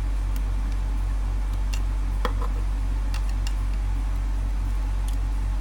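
Steady low mains hum at about 50 Hz throughout, with a handful of faint, irregular small clicks and taps from parts being handled and pried: a hot-glued lamp fitting being worked loose inside a CB radio.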